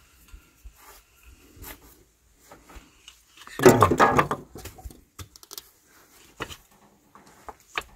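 Screw-type cylinder liner puller being cranked to draw a cylinder liner out of a diesel engine block: scattered clicks and scrapes of the screw and handle, with one louder grinding creak lasting under a second about three and a half seconds in as the liner moves against its seal rings, which have turned to gum.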